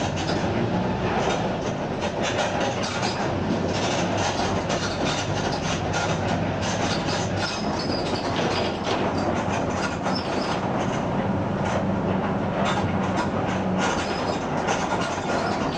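Mercedes-Benz OF 1721 BlueTec 5 bus on the move, its diesel engine running steadily at mid revs with the differential growling. Frequent short rattles and knocks from the moving bus run through it.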